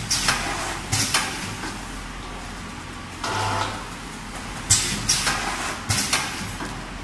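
Vertical form-fill-seal paste packaging machine cycling. A short motor hum as the film is drawn down is followed by a run of sharp clacks with short hisses from the sealing and cutting jaws. The cycle repeats about every five seconds.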